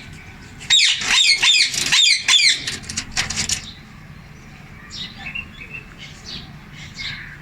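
Male Indian ringneck parakeet chattering: a loud, rapid run of repeated high calls for about three seconds, then softer scattered chirps.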